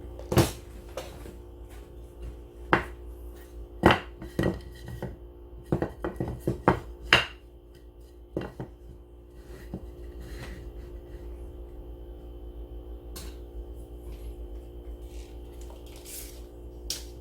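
Sharp clicks, knocks and clatters of hard objects being handled, thickest in the first half and sparse later, over a steady low hum.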